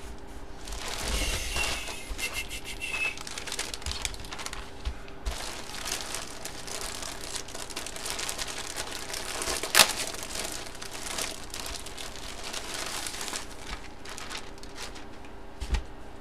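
Plastic crinkling and rustling as trading cards and their plastic holders are handled, with a sharp click about ten seconds in and a softer knock near the end.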